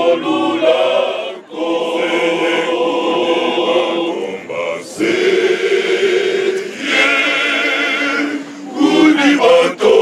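Men's choir singing a cappella, holding long sustained chords phrase by phrase with short breaths between.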